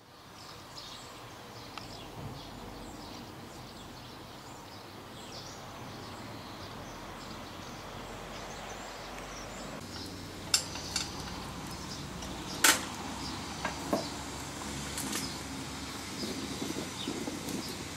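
Steady outdoor background with faint bird chirps. From about ten seconds in come a handful of sharp metallic clicks and clinks from work around a small live-steam locomotive, the loudest a little past the middle.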